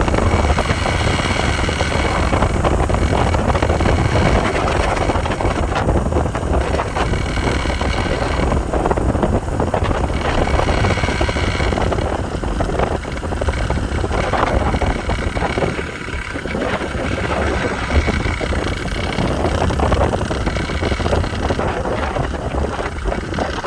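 Steady rush of wind buffeting the microphone, with a low rumble from the zipline trolley running along its steel cable during a ride.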